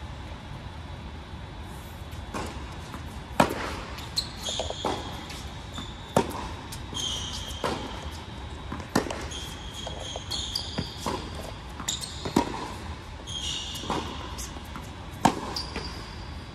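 A tennis rally on an indoor hard court, starting about two seconds in: racket strikes and ball bounces come every second or so, and the near player's hits are the loudest. Tennis shoes give short high squeaks on the court between shots, and the big hall gives everything an echo.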